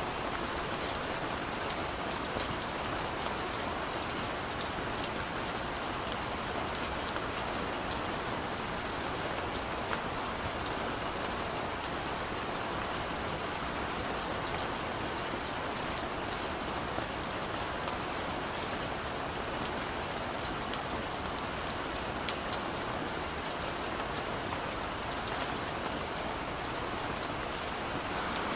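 Steady rain falling on a surface, an even hiss dotted with many small drop ticks.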